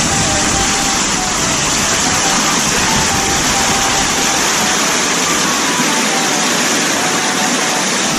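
Loud, steady rush of a fast mountain creek cascading over boulders.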